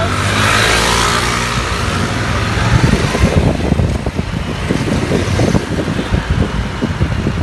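Road traffic heard from a moving vehicle: engines running, with motor scooters close by. From about three seconds in, wind buffets the microphone.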